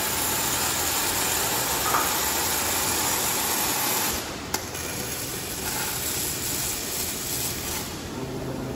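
Arc welding heads of an automatic pallet-rack beam-to-bracket welder welding a steel beam to its brackets: a steady welding noise that drops a little in level about halfway, with one sharp click just after.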